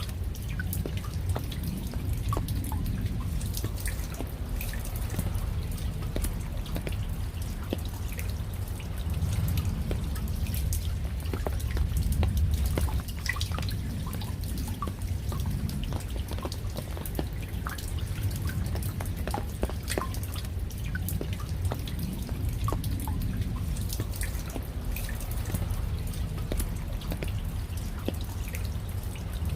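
Raindrops falling as separate, irregular drips over a steady low rumble.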